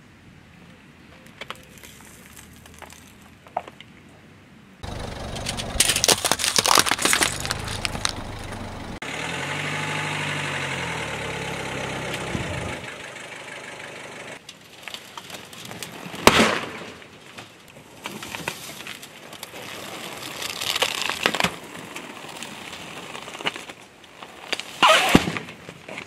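A car engine starts and runs as the tyre rolls over a cardboard box of Skittles candy, with a burst of crunching and cracking and an engine note that rises and falls. Several more sharp cracks and crunches follow later on.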